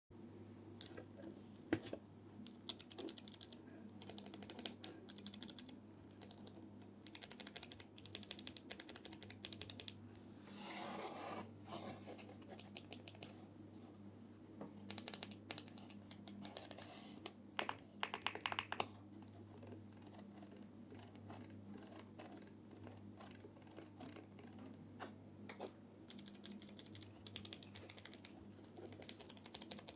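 Akko Creamy Cyan clicky mechanical key switches being pressed in quick runs of sharp clicks, with pauses between bursts. A short burst of noise comes about eleven seconds in, and a faint steady hum sits underneath.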